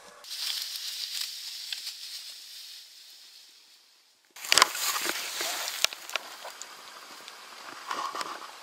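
Rustling of brush and dry leaves as the hunter moves. About halfway through comes a single sharp, loud shot at a wild boar, then a smaller crack a second later and more rustling.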